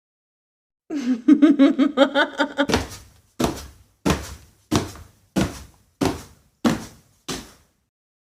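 Laughter: a quick burst of rapid laughing, then about eight slow, heavy, evenly spaced laughs, each about two-thirds of a second apart, dying away.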